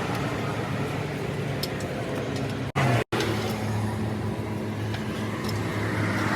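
A vehicle engine running steadily with a low hum. The sound cuts out briefly twice about three seconds in.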